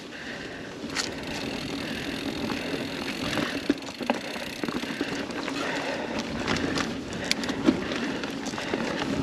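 Mountain bike rolling along a dirt singletrack: a steady rush of tyre noise on packed dirt and dry leaves, with scattered clicks and knocks from the bike rattling over the trail.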